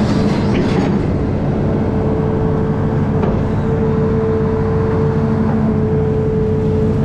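Amphibious excavator's diesel engine running steadily, with a constant whine that shifts slightly in pitch a couple of times.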